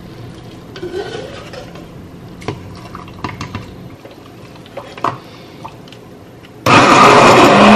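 Roasted pumpkin and liquid going into a plastic blender beaker, with scattered light knocks and clinks. Near the end, an immersion blender switches on suddenly and runs loudly with a steady hum, puréeing the soup.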